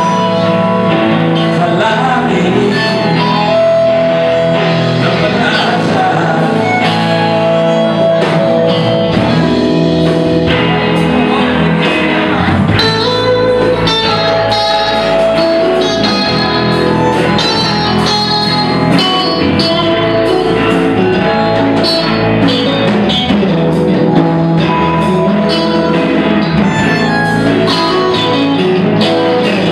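Live blues-rock band playing: electric guitars, electric bass, drum kit, harmonica and keyboard, loud and continuous.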